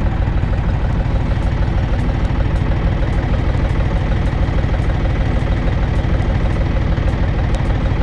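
An engine idling steadily close by: a loud, even low rumble.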